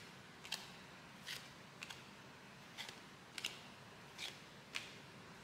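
Glossy trading cards flicked and slid off a stack one after another: faint, short papery swishes, about eight of them, roughly one every half second to a second.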